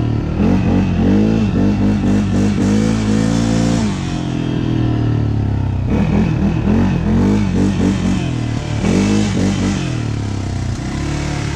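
ATV engine revving up and down in quick, repeated throttle surges. It settles to a steadier run for a couple of seconds midway, surges again, then steadies near the end.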